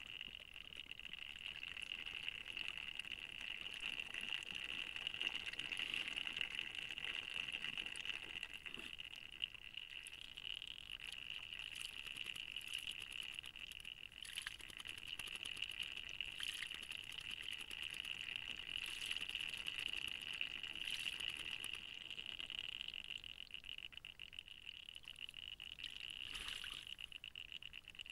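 Brief splashes of water as a varied thrush bathes in a shallow forest pool, several times in the second half. A steady high-pitched drone runs underneath.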